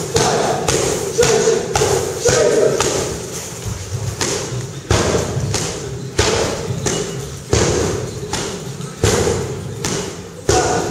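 Kickboxing punches and kicks landing on heavy punching bags, irregular thuds about once a second, each echoing in a large hall.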